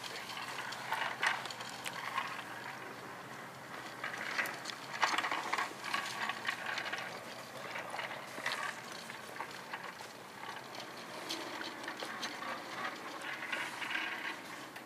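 Indistinct hall ambience: an uneven background of rustling and handling noise with scattered light clicks and knocks, rising and falling in level.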